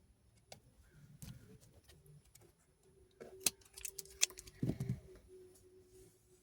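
Light clicks and taps of hands working a strip of double-sided nano tape and a plastic box. There are two sharper clicks around the middle and a soft knock just after, with a faint steady hum coming in partway through.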